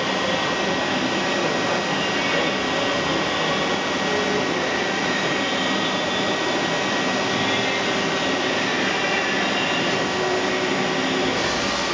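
Starvision AC5 CNC machining center running during its automatic head-change cycle: a steady whirring hum of its pumps and drives with a faint high whine. A harsher hiss comes in near the end.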